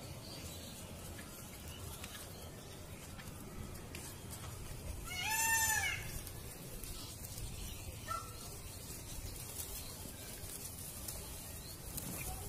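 A peacock (Indian peafowl) gives one loud call about five seconds in; its pitch rises and then falls, and it lasts under a second.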